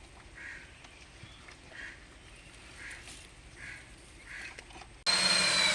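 A few faint bird calls in a quiet stretch, then about five seconds in the electric motor of a concrete core drilling machine cuts in suddenly and runs steadily with a high whine and a low hum.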